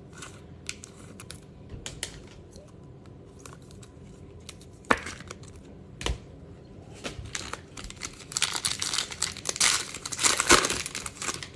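A foil trading-card pack being torn open and its wrapper crinkled, with scattered light clicks and rustles of handling first, then a dense run of tearing and crinkling in the last few seconds.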